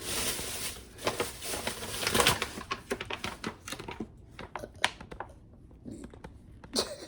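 Packaging crinkling and rustling as items are handled, with many small clicks and taps; busy for the first few seconds, then sparser clicks.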